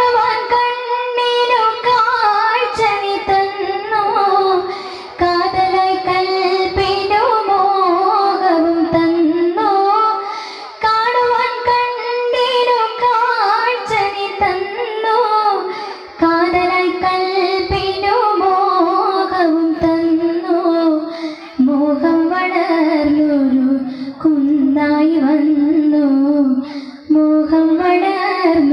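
A child singing a devotional song solo, in long melodic phrases with short breaks between them.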